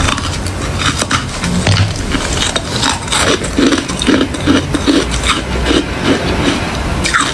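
Hard ice crunching as it is bitten and chewed, with many sharp cracks. From about halfway on the chewing settles into a steady rhythm of two to three crunches a second.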